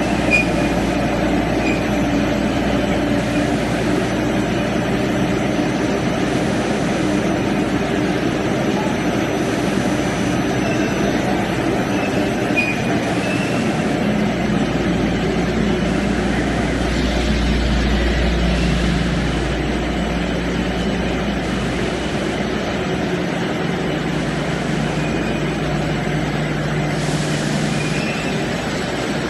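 Pet biscuit production line machinery running, a steady mechanical din of conveyors and drives. A deeper rumble swells briefly about halfway through.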